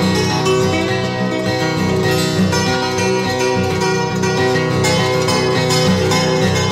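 Acoustic guitar music, a steady run of plucked notes.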